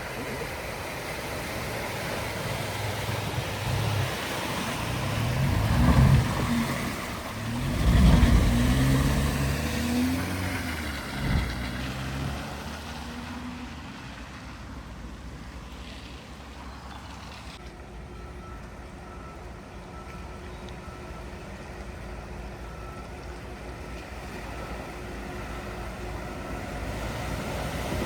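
A vehicle driving through floodwater: engine noise and rushing water build up and peak in loud surges about six and eight seconds in, with a shorter one near eleven seconds. After that comes a quieter, steady hum.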